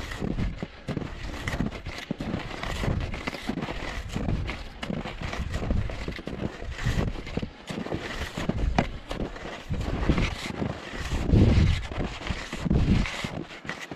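Wide hunting skis crunching and swishing through snow in a steady rhythm of strides, with wind buffeting the microphone in places.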